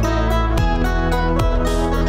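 Background music with strummed guitar in a steady rhythm, the chords changing about every second.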